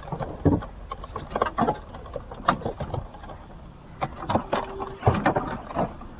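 Irregular clicks and knocks from a car dashboard being handled and fitted into place.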